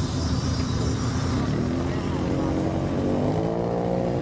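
Engines and exhausts of lowered cars driving slowly past at low speed, a steady low rumble. About three seconds in, a second car's engine note rises as it accelerates in.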